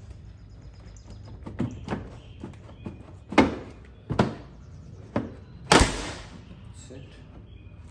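Plastic rear bumper cover of a Toyota Highlander being pried loose, its clips letting go in about six sharp cracks and snaps, the loudest two about halfway through and near the end. It sounds as if something is breaking, but this is the normal way the bumper cover comes off.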